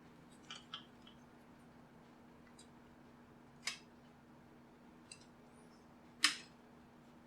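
A pry tool working at a JBL Flip 2 speaker's plastic casing: a few scattered sharp clicks, the loudest near the end. A faint steady hum runs underneath.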